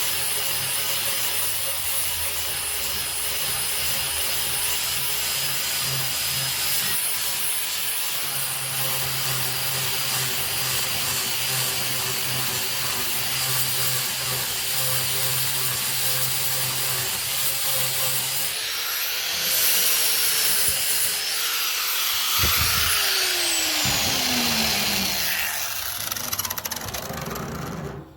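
Angle grinder with a flap disc sanding oak: a steady motor whine over the abrasive rasp of the disc on the wood. Late on, the motor's pitch falls as it winds down.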